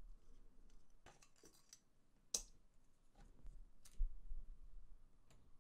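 Faint clicks and small handling taps as an M.2 NVMe SSD is slid out of its USB enclosure, with a sharper click about two and a half seconds in and another near four seconds.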